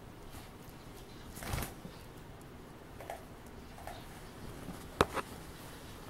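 Onagadori rooster moving and preening in a small tiled room: a brief rustle about a second and a half in, a couple of faint short sounds, then two sharp clicks close together near the end.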